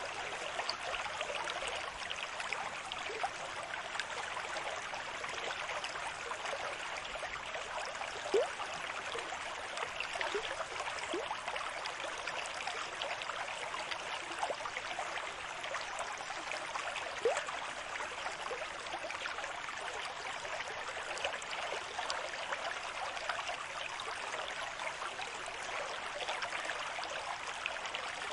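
Steady rush of moving water with small bubbling plinks scattered through, and no distinct surges of breaking waves. Two louder plinks come about eight and seventeen seconds in.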